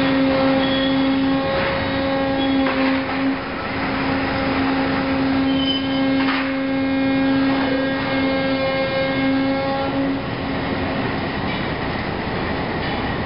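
FRIMA HP 1400 concrete block machine running, a steady loud hum with a few sharp metal clanks. The hum drops out about ten seconds in.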